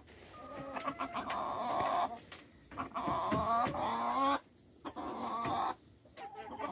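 Domestic hens clucking in several drawn-out bouts with short breaks between.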